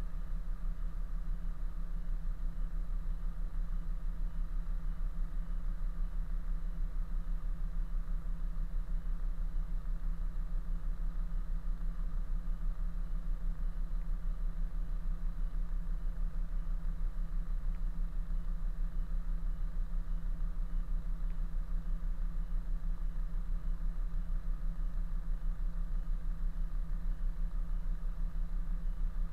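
Kenworth B-double prime mover's diesel engine idling steadily, the truck standing still.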